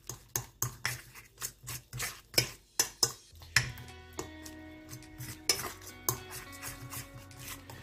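Metal fork stirring thick semolina-and-egg dumpling batter in a stainless steel bowl, clinking against the bowl about four times a second; after about three seconds the strokes thin out to a few scattered clinks.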